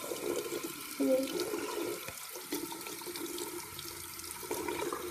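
Tap water running steadily into a bathroom sink, splashing over hands as slime is rinsed under the stream.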